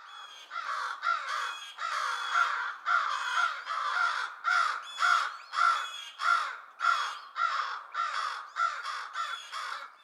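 Several American crows cawing over and over in a rapid, unbroken run of about two caws a second. These are mobbing calls aimed at a great horned owl, meant to rally other crows and drive the owl away.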